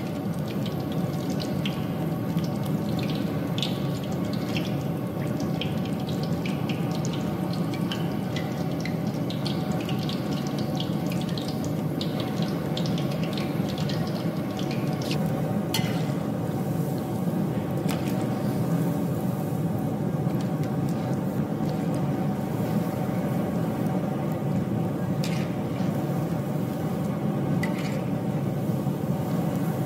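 Cabbage cutlets deep-frying in medium-hot oil in a kadai: a steady sizzle with many small crackles and pops, and a few sharp clicks in the second half.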